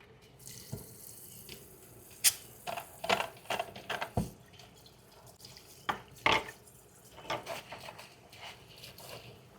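Kitchen tap running into a sink, with dishes or utensils knocking and clinking against each other several times.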